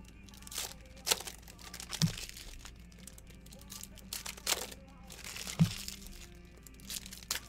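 Crinkling and rustling of plastic card packaging being handled, with a few short crackles and a couple of soft knocks on the table, over faint background music.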